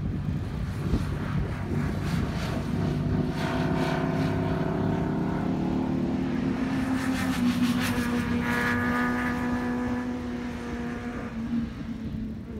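Harley-Davidson Breakout's V-twin engine running under way, its pitch rising and falling with the throttle. A short burst of crackling comes about seven seconds in.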